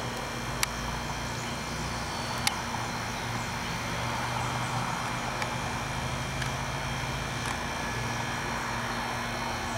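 A steady mechanical hum with hiss, broken by two sharp clicks about half a second in and again about two and a half seconds in.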